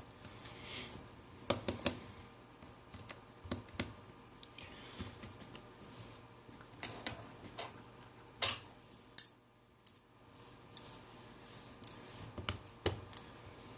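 Small precision screwdriver working the screws out of a Nokia Lumia 520's housing: scattered light clicks and scrapes, with one sharper click about eight seconds in.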